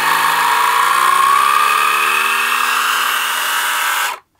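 The electric motor of a Kyosho Half 8 RC starter box running on a battery pack, with a loud whine that rises slowly in pitch as it spins up, then cuts off suddenly about four seconds in. The motor is burnt out and smoking as it runs.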